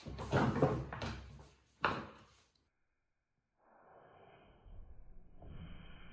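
Kittens bumping against and clambering over a plastic laundry basket: a clatter at the start and another about two seconds in, then after a short gap a steady rustling noise that grows louder near the end.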